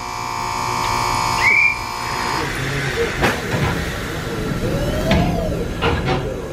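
Inside a stationary Kotoden 1300-series train car (ex-Keikyu 1000): a steady high electronic tone cuts off about two and a half seconds in, followed by a few sharp knocks and clanks over the car's background hum.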